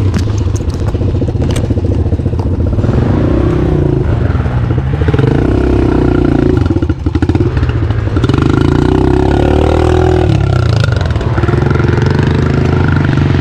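Two-stroke dirt bike engine running under load, its revs rising and falling as the throttle is worked, with a brief dip about seven seconds in.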